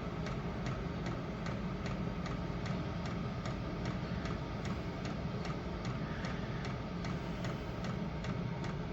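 Chinese diesel heater running on its number 2 setting: the fuel dosing pump ticks steadily about three times a second over the heater's steady low hum.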